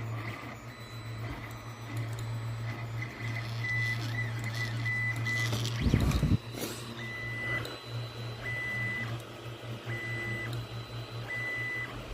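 Ender 3 3D printer running: its stepper motors whine in short, repeated high tones with brief pauses between moves, over a steady fan hum. A thump about six seconds in.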